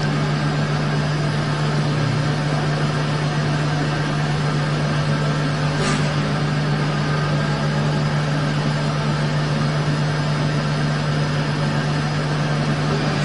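Okuma MU-500 five-axis machining center running a turning operation, its rotary table spinning the workpiece: a steady machine drone with a strong low hum. A short hiss about halfway through.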